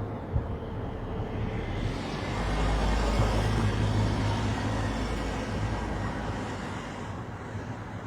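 A motor vehicle passing on a road: a steady rumble and tyre noise that swell over a few seconds and then fade.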